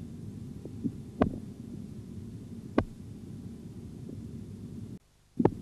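A stethoscope (auscultation) recording taken while a blood-pressure cuff deflates: a steady low rumble with a few irregular sharp clicks, the loudest about a second in and near three seconds, and one more thump just before the end. These irregular sounds are artifacts, not Korotkoff sounds.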